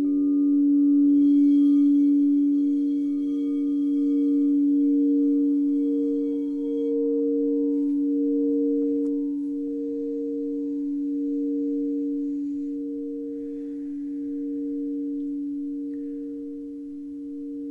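Singing bowl ringing: a long steady low tone with an overtone above it that wavers a little more than once a second. The higher overtones die out about halfway through, and the ring slowly fades.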